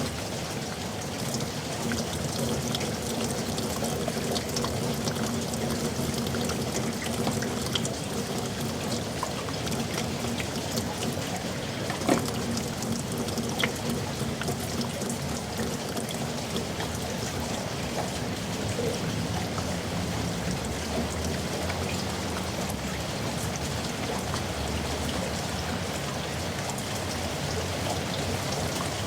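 Heavy rain falling in a yard: a steady rushing hiss dotted with countless individual drops, with a couple of sharper drop hits about halfway through.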